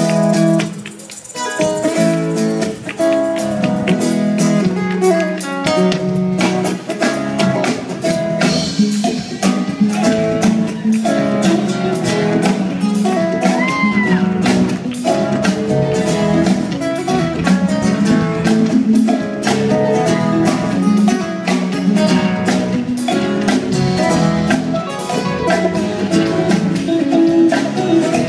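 Live band playing through a stage sound system: guitars over drums and conga percussion with a steady beat, dipping briefly about a second in.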